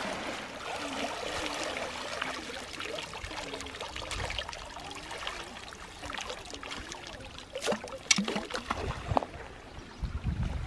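Water trickling and splashing as hand-held fishing nets and a bamboo scoop basket are dipped and lifted out of shallow river water, draining through the mesh. A couple of sharper splashes come about two-thirds of the way through, and there are a few low bumps near the end.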